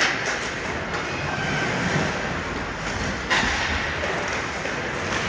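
Ice hockey skates scraping and carving on rink ice, with a louder sudden scrape about three seconds in.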